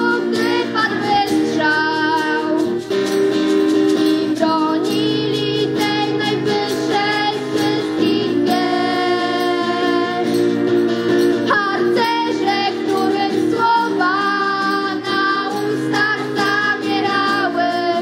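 Girls singing a song to acoustic guitar accompaniment, with a flute playing along and a group of young voices joining in.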